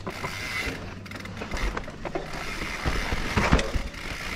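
Mountain bike rolling down a rocky, rooty dirt trail: tyres running over dirt and stones with a steady clatter of small clicks and rattles from the bike, the rear freehub ticking as it coasts. A cluster of loud knocks about three and a half seconds in, as the wheels hit rocks and roots.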